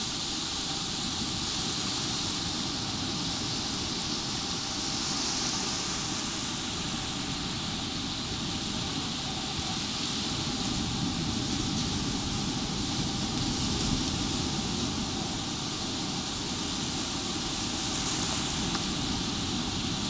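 Small ocean waves breaking and washing up a sandy beach in a steady hiss, over a low rumble of wind on the microphone.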